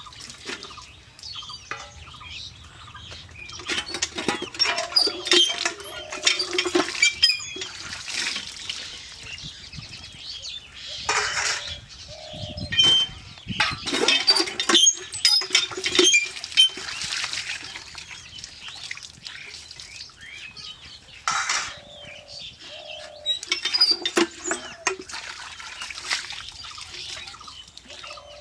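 Stainless-steel plates and bowls clinking and scraping as they are rinsed under a cast-iron hand pump, with water splashing onto stones. A few times the pump handle squeaks in short pairs of tones as it is worked, once about a third of the way in and again past the two-thirds mark.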